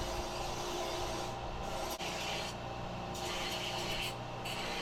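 Belt sander running steadily while a piece of steel is ground against the belt. The grinding hiss swells and eases in repeated passes every second or so.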